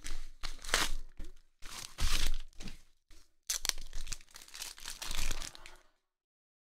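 A yellow padded mailer being torn open and crumpled in several noisy bursts, with a few sharp clicks as hard plastic graded-card slabs are pulled out of it.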